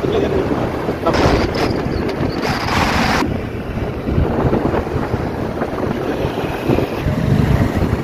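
Wind buffeting the microphone of a moving vehicle, over low road rumble, with a brighter rush of noise from about one to three seconds in.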